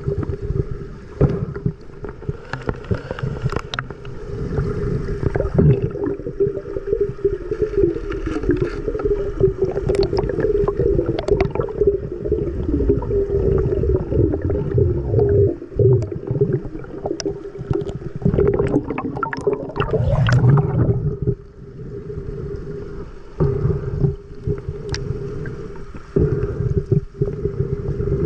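Water churning and gurgling over a steady, slightly wavering hum, with scattered knocks and clicks, as heard in an underwater recording.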